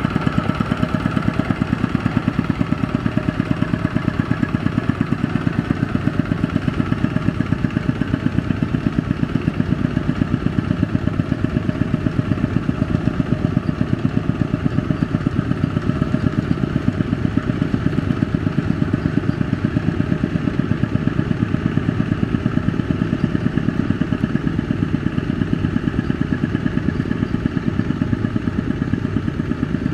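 Kubota ZT120 single-cylinder diesel engine of a two-wheel tractor pulling a loaded trailer, running steadily with fast, even firing pulses.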